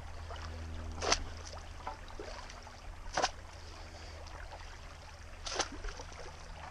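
Shallow creek water trickling, with three short splashes about two seconds apart.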